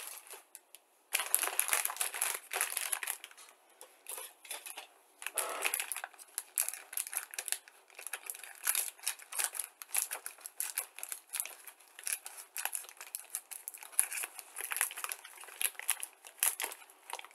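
Thin clear plastic bag holding plastic model-kit sprues crinkling as it is handled, with small clicks of the plastic parts inside; it starts abruptly about a second in and runs on in uneven bursts.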